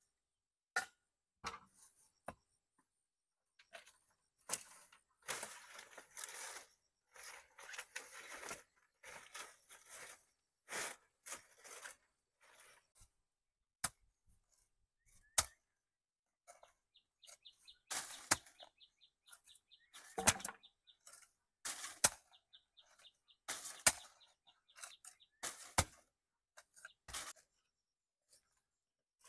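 Sharp knocks at irregular intervals, with stretches of rustling in the first half. A faint fast ticking runs for several seconds in the second half.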